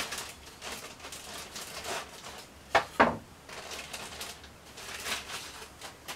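Clear plastic bag crinkling and rustling as foam tail pieces are pulled out of it and handled, with two sharper crackles close together about three seconds in.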